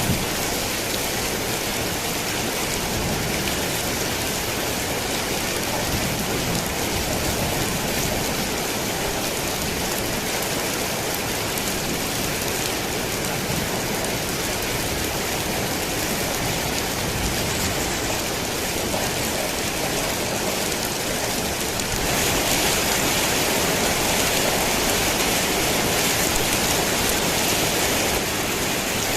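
Steady heavy rain drumming on a tin roof. About two-thirds of the way through it suddenly grows louder and hissier, then falls back near the end.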